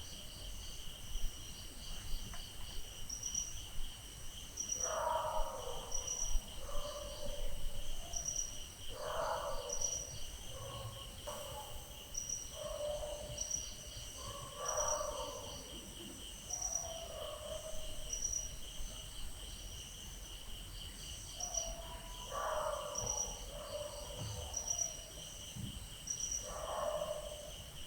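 Crickets chirping steadily in a fast, high, pulsing chorus, with dogs barking and yowling on and off, a few calls at a time, several times over.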